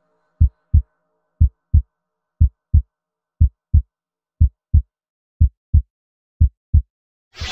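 Heartbeat sound effect: slow, evenly spaced pairs of low thuds in a lub-dub rhythm, about one beat a second.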